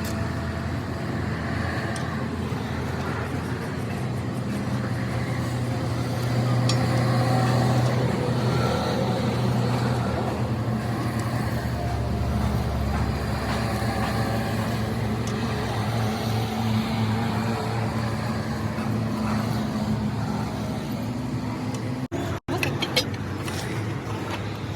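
A vehicle engine running steadily with a low, even hum. The sound cuts out briefly for a moment near the end.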